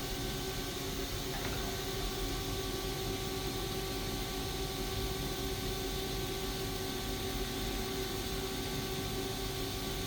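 Haas ST40L CNC lathe running: a steady machine hum with several fixed tones over an even hiss.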